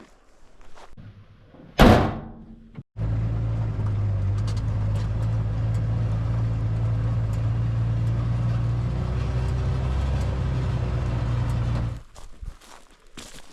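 A sharp, loud bang with a short ringing tail about two seconds in. Then a vehicle engine runs steadily for about nine seconds, starting and stopping abruptly.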